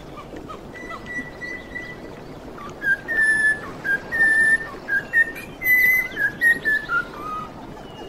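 Cockatiel whistling a song: a few soft notes, then from about three seconds in a louder run of clear whistled notes, some held and some short, stepping down in pitch near the end.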